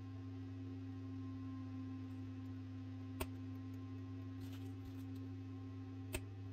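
Hobby knife cutting small parts off a plastic model kit piece, with two sharp clicks about three seconds apart as the blade snaps through the plastic, over a steady low hum.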